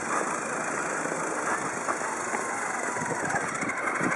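Small four-wheeled robot car driving itself: a steady rolling and motor noise from its wheels and drive over pavement and grass.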